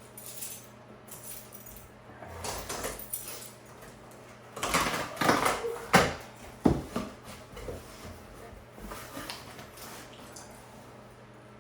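A heavy cardboard shipping box being opened by hand, with rustling and tearing of the packing, louder through the middle, and two sharp knocks about six seconds in.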